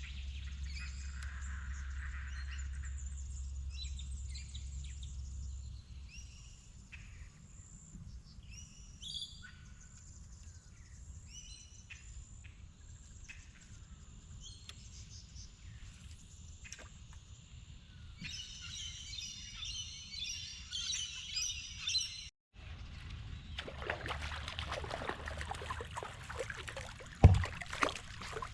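Wild birds chirping and calling, many short calls, busiest about two-thirds of the way through. After a sudden break, a stretch of rushing noise with one loud thump near the end.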